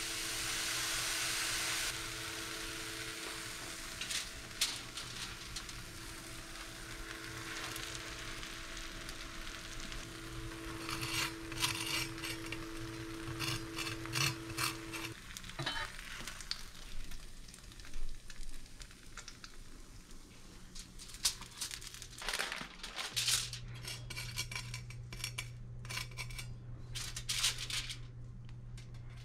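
Grated cheese sizzling in a hot frying pan under a grilled cheese sandwich, with a steady whine beneath it that stops about halfway through. After that come scattered clicks and scrapes of a knife against the crisp sandwich and aluminium foil.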